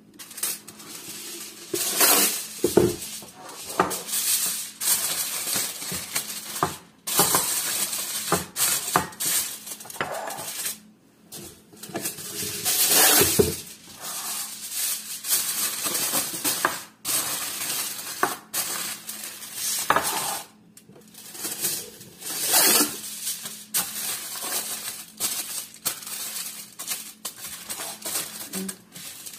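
Disposable aluminium foil food containers and lids being handled: foil crinkling and clattering in irregular bursts as the lids are pressed on and crimped down.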